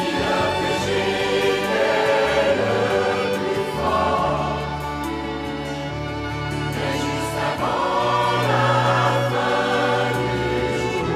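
Mixed choir of men's and women's voices singing, accompanied by a small instrumental ensemble with strings, with long held low notes underneath.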